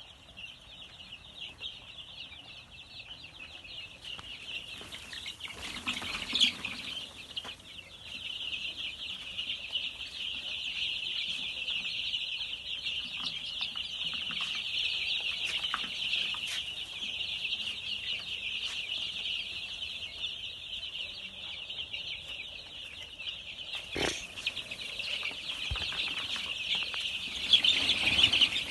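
A large crowd of young chicks peeping together in a dense, unbroken chorus, with a single sharp knock about 24 seconds in and a louder flurry near the end.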